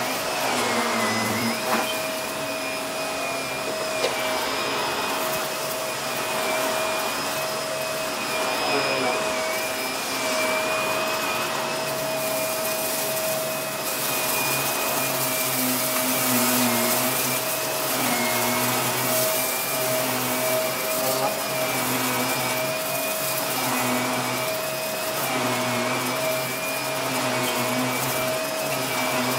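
Bagless upright vacuum cleaner running steadily with a high motor whine, pushed back and forth over a rug and sucking up scattered rice grains. Its pitch dips and recovers about every two seconds, with a few faint clicks.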